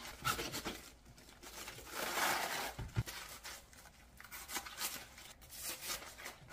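A kitchen knife slicing crisp napa cabbage leaves lengthwise into strips: a series of irregular crunchy, tearing cuts, the loudest about two seconds in, with a short knock about three seconds in.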